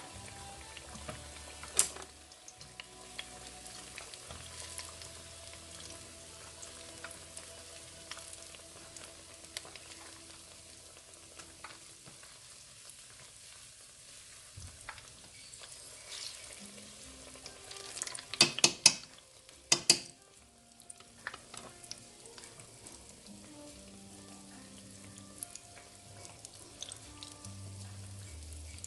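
Batter-coated banana slices frying in hot oil, a steady sizzle broken by sharp clicks and taps; the loudest is a quick cluster of clicks about two-thirds of the way through.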